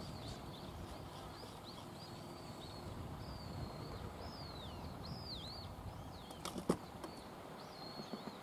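Birds calling with short whistled chirps that rise and fall, several through the stretch, over a low outdoor hiss. A few sharp clicks or taps come together about six and a half seconds in.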